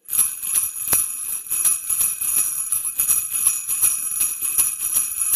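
Jingle bells shaken continuously in a fast, irregular jingle that starts abruptly.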